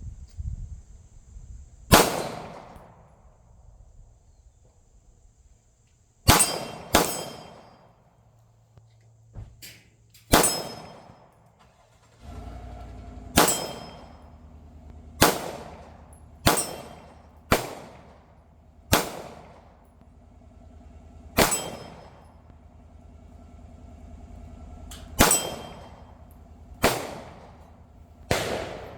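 Glock 19 Gen 5 9mm pistol fired about a dozen times at an unhurried, irregular pace, with a quick pair about six seconds in. Each report is followed by the ringing clang of a steel target being hit.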